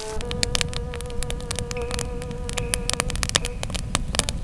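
Campfire of twigs and split branches crackling, with many irregular sharp pops and snaps, over a steady held tone.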